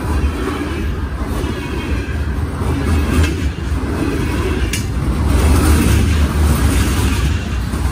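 Loaded aggregate hopper cars rolling past, a steady rumble of steel wheels on rail, with one sharp click a little past halfway.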